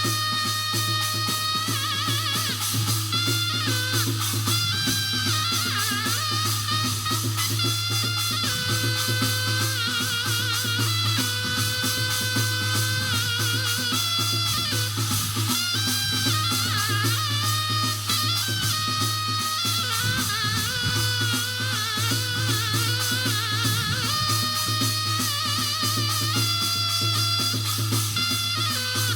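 Korean shamanic ritual (gut) music: steady drumming and clattering percussion under a wavering, sustained melody line.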